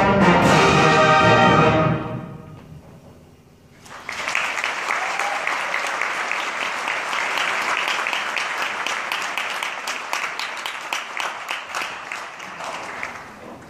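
A high school concert band ends a piece on a loud held final chord that rings on in the hall for about two seconds, then the audience breaks into applause that gradually thins out.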